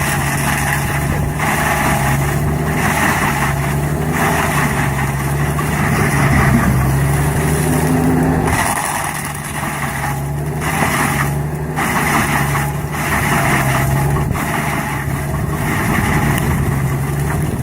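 Heavy machine's diesel engine running steadily under load, with loud rough cutting or grinding noise on top that swells and dips every second or so.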